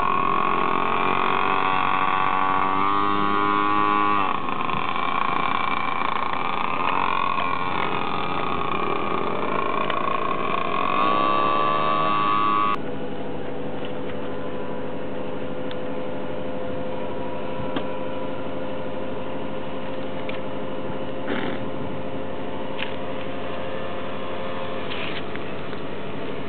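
Small mini-motorbike engines running and revving, their pitch rising and falling as they ride off. Partway through, the sound cuts abruptly to a quieter, steady engine hum.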